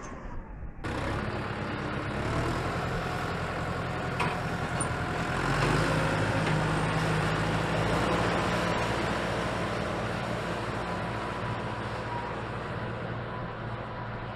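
McCormick B95 Max tractor's diesel engine running steadily under load as it pulls a tine cultivator through dry soil. It grows louder as the tractor passes, about halfway through, then slowly fades as it moves away.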